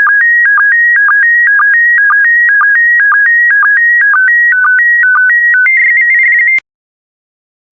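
Slow-scan TV picture signal in PD120 mode: electronic tones stepping between about 1.5 and 2.3 kHz, broken by a short low sync pulse roughly twice a second. These are the last scan lines of an image. Near the end the tones become a fast warble, then cut off suddenly as the transmission ends.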